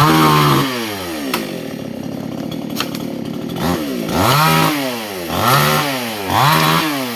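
Two-stroke chainsaw engine revving high, dropping back to a lower, rougher running speed, then blipped up and down about three times in quick succession, each rev rising and falling in pitch.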